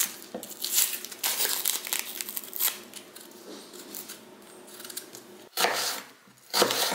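Dry, papery onion skin crackling and tearing as it is peeled off with a kitchen knife, then a couple of knife cuts through the onion onto a wooden cutting board near the end.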